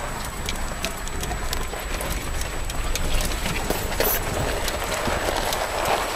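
A vehicle driving over a rough gravel track: a low, steady rumble of engine and tyres with many scattered clicks and knocks from stones and rattles.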